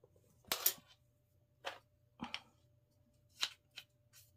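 Handling noise of fishing rod parts: rod tip and handle sections clicking and tapping together as they are picked up and tried for fit, about six short knocks, the loudest about half a second in.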